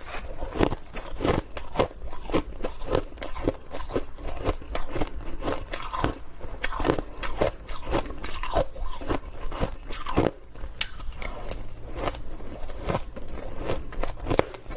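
Close-up crunching and chewing of shaved ice: an irregular run of crisp crunches, about two or three a second, as mouthfuls are bitten and chewed.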